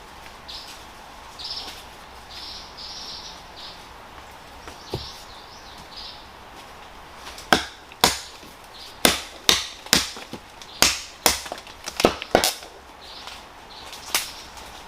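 A tool strikes something hard about a dozen times, sharp irregular blows at roughly two a second, starting about halfway through. Before that come short, high bird chirps.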